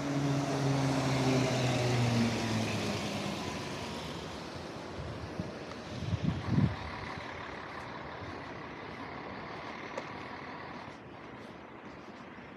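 A city bus drives past, its engine note loud at first and dropping in pitch as it pulls away, with road and tyre noise. It fades to distant traffic, with a few low thumps about six seconds in.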